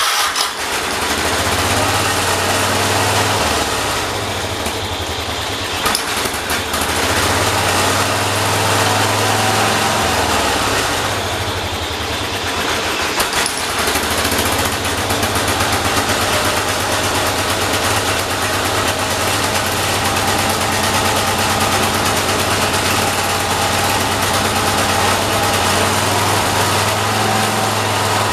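Single-cylinder Kohler engine of a John Deere 212 garden tractor fires up just as it begins and then runs steadily with a fast, even firing beat. Its speed wavers a couple of times. This is an engine that, the owner says, won't keep running unless choked, with its carburetor out of adjustment.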